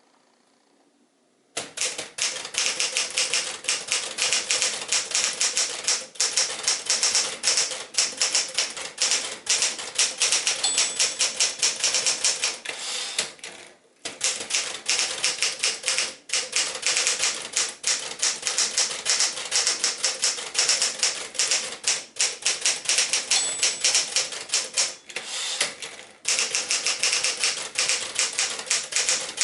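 A 1964 Smith-Corona Sterling manual portable typewriter being typed on fast: a dense patter of type-bar strikes that starts about a second and a half in. The margin bell dings briefly twice, and the typing breaks off twice for a moment.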